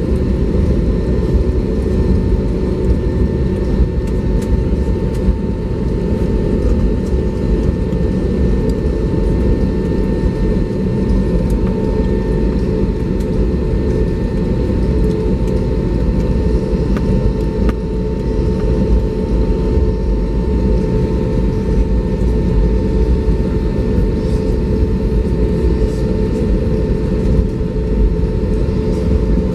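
Cabin noise inside an Airbus A320neo taxiing: a steady low rumble with a thin steady whine over it.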